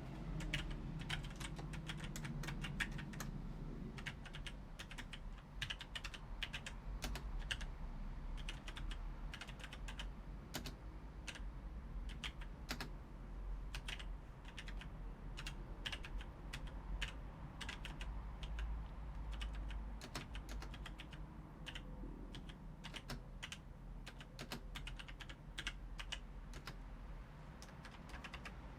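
Logitech G613 mechanical keyboard being typed on at a normal typing pace: a steady stream of irregular key clicks.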